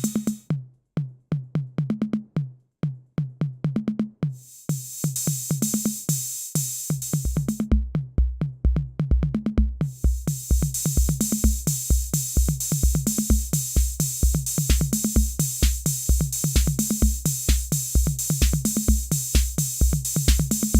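Roland TR-606 Drumatix analog drum machine playing a steady pattern of hi-hat, toms and snare. The bright cymbal part drops out for a few seconds just after the start and again around eight to ten seconds in, and a deep bass drum comes in about seven seconds in and keeps a steady beat.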